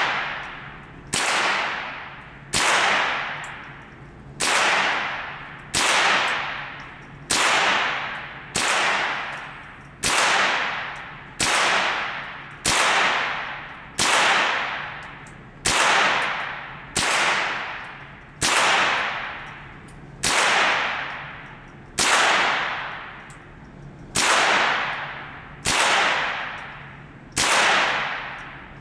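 Smith & Wesson M&P 15-22 semi-automatic .22 LR rifle firing a steady string of about twenty single shots, roughly one every one and a half seconds. Each crack rings out and decays in the reverberant indoor range. The rifle is cycling every round without a misfire after a change of ammunition.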